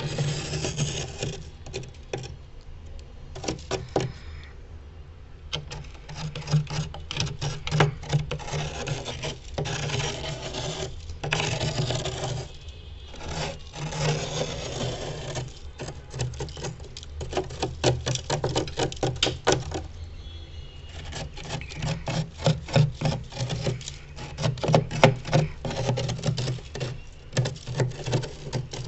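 Spoon scraping and rasping against freezer frost in quick repeated strokes, with short pauses between runs. A steady low hum lies underneath.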